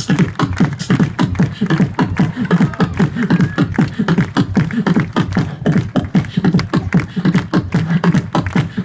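Beatboxing through a microphone and PA: a fast, steady beat of clicks and drum-like hits over a low, pitched bass line.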